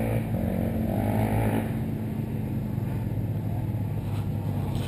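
Off-road vehicle's engine idling steadily, a low even hum.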